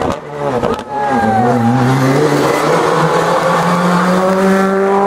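Rally car engine at speed: the revs drop and wobble in the first second as it brakes into a bend, then climb slowly and steadily as it accelerates out.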